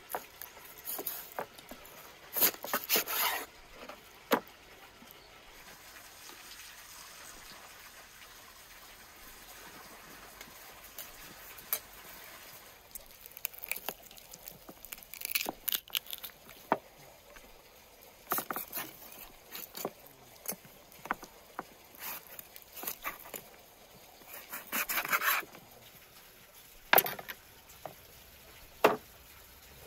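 Raw meat being butchered with a large knife on a wooden board: the blade slices and scrapes through flesh and sinew, with scattered light knocks of the blade and meat on the board. There are two sharp knocks near the end.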